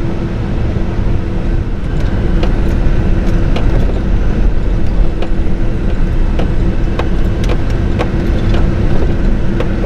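Road and engine noise inside the cab of a GMC Denali pickup truck on the move: a steady low rumble with a constant drone, getting a little louder about two seconds in.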